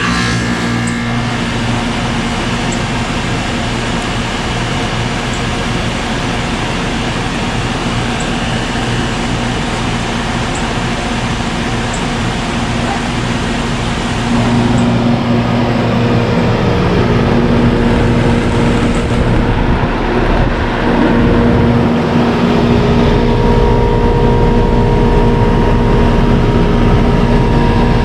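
1986 Whirlpool 2-ton central air conditioner's outdoor unit kicking on suddenly and running steadily: its Bristol reciprocating compressor humming under the rush of the condenser fan. The sound gets a little louder about halfway through.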